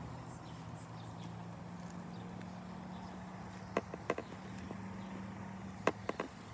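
A low steady hum, with a few sharp clicks and taps about four seconds in and again near the end, over a faint high hiss.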